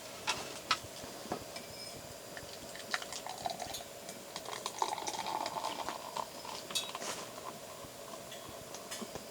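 Cooking sounds: metal utensils clicking and clinking against dishes as food is stirred and mixed, busiest about five seconds in, over a steady low hum.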